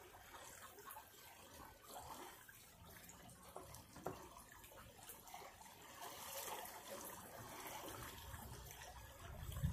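Faint flowing floodwater with light splashing and small clicks, and a brief sharper knock about four seconds in.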